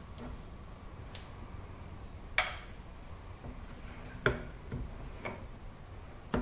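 Sharp metal-on-metal clicks and knocks, five or six separate ones, as a steel rotary table is handled and lifted off a milling machine. The loudest come about two and a half and just over four seconds in.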